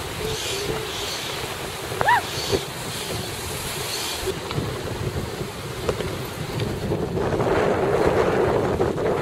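Wind buffeting the microphone over the wash of surf, growing louder about seven seconds in. A single short chirp that rises and falls about two seconds in.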